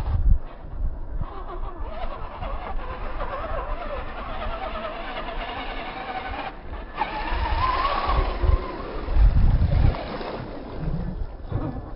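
1/10-scale RC monster truck driving through wet mud, its motor and gears whining and rising and falling in pitch with the throttle. The whine climbs about seven to eight seconds in, followed by heavy low rushing as the tyres churn and spray mud.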